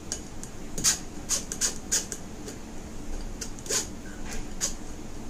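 Steel spoon scraping and rubbing crumbly besan mixture through a coarse stainless-steel mesh sieve: irregular scratchy strokes, about two a second.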